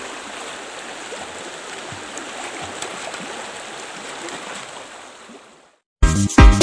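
Steady rush and splash of river water, with no clear voices, fading out a little before the end. Then background music with a heavy beat cuts in abruptly.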